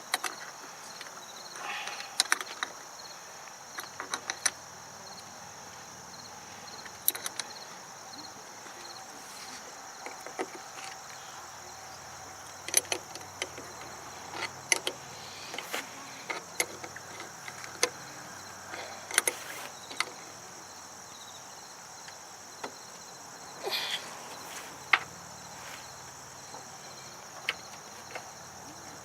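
Irregular sharp clicks, knocks and brief scrapes from hand work with tools and parts while a horn button is mounted under a pickup truck's dash. Behind them runs a steady high-pitched chorus of crickets.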